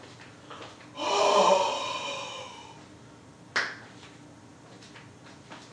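A person's drawn-out gasp about a second in, followed a couple of seconds later by a single sharp click.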